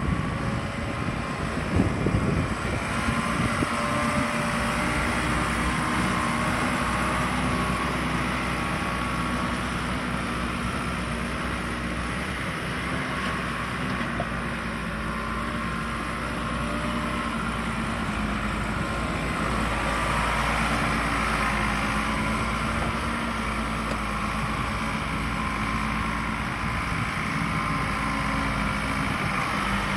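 Case 580 Super L backhoe loader's diesel engine running steadily while the machine is driven, with a few sharp clunks about two seconds in.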